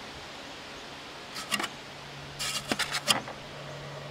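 Plastic squirrel-cage blower wheel of a window air conditioner being spun by hand, giving a few light clicks and rattles, to check that it turns freely on its newly replaced fan-motor bearings. A low steady hum starts about halfway through.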